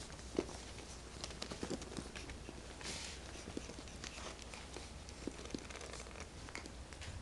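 Puppies shifting and scrabbling about in a crate with a plastic tray: scattered soft taps, clicks and rustles, with one sharper click about half a second in.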